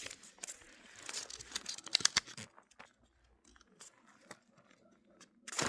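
Crinkling, rustling and tearing of blind-bag packaging being handled and opened: a dense run of crackly clicks in the first two and a half seconds, then fainter, scattered rustles.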